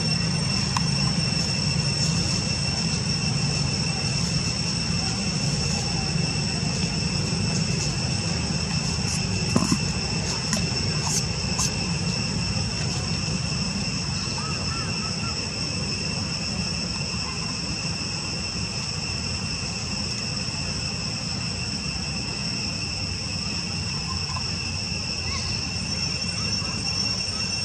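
Insects droning steadily at a high, even pitch over a continuous low rumble.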